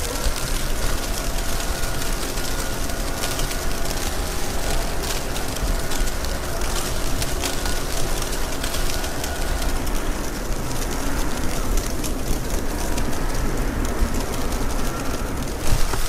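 Wind buffeting the microphone: a steady, rumbling rush, heaviest in the low end, with faint thin steady tones running through it.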